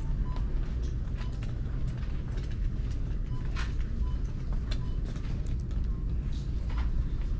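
Handheld camera carried while walking: a steady low rumble with scattered clicks and knocks of handling noise.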